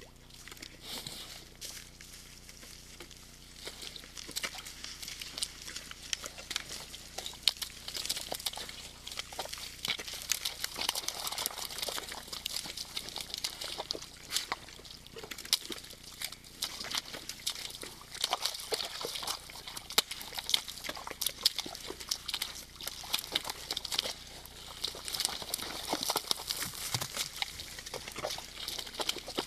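Red deer moving through a muddy wallow: hooves squelching and splashing in wet mud, making many short, irregular splashes that grow busier after the first few seconds.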